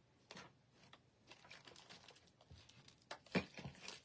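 Faint rustling and light clicks of small craft objects being handled on a tabletop, with one sharper knock about three and a half seconds in.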